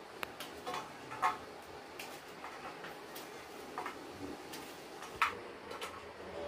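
Small knife cutting through gourds held in the hand, with irregular sharp clicks and taps as the pieces drop into a steel plate. The loudest click comes about five seconds in.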